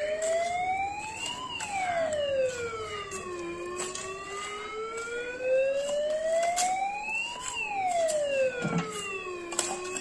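A wailing siren, its pitch rising slowly and falling again about every six seconds, with scattered short knocks under it.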